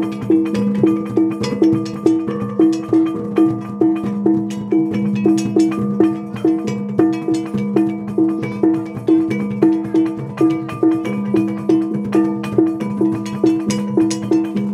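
Traditional Butonese gong and drum music: a pitched gong struck in a steady rhythm about two and a half times a second over a lower ringing gong tone, with drum beats.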